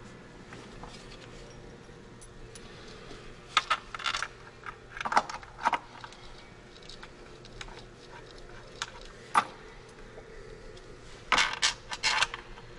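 Light metallic clinks and rattles in a few short spells, from bolts and wiring harness connectors handled while an engine ECM is fitted, over a faint steady hum.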